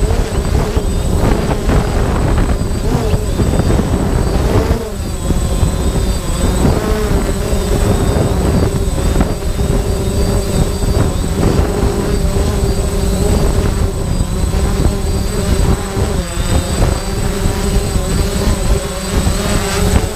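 Quadcopter's electric motors and propellers humming steadily, heard from the camera on the drone itself, with heavy prop-wash buffeting on the microphone. The pitch wavers slightly as the drone hovers low and descends.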